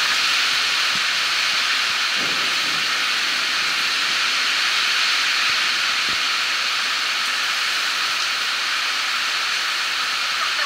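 Heavy storm rain pouring down, a steady dense hiss.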